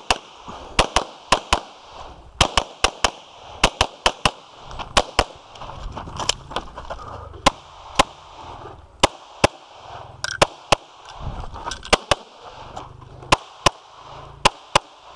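Rapid pistol fire from a Glock 24 in .40 S&W, heard close up from the shooter's position. There are about thirty shots, mostly fired in quick pairs, with brief pauses between groups.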